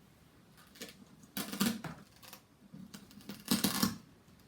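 Paper picture cards handled on a tabletop: light taps and rustles in two short clusters, about a second and a half in and again near the end.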